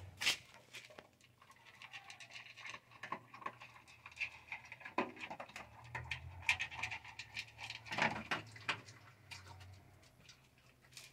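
Dog eating dry kibble from a metal bowl: faint, irregular crunching and clicking.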